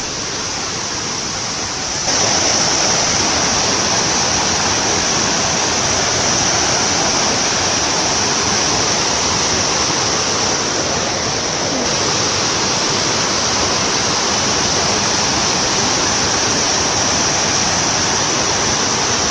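Rushing creek water pouring over rocks: a steady, even rush that grows louder about two seconds in.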